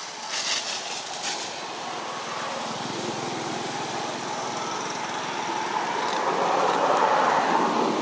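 A motor vehicle's engine running and growing steadily louder, loudest near the end, with a few sharp clicks in the first second or so.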